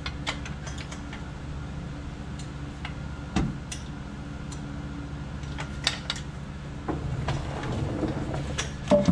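Hand socket ratchet clicking in short runs, with metal tool clinks and a knock a little over three seconds in, over a steady low hum.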